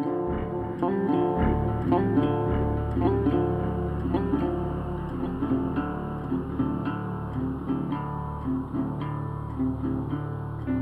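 Background music: plucked acoustic guitar playing a steady run of notes, with a bass line coming in about a second and a half in.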